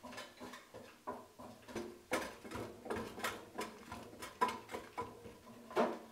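Irregular light knocks and clunks, a few a second, with a faint metallic ring: the base of a floor drill press rocking against a concrete floor as the machine is tipped by its head. The machine is top heavy.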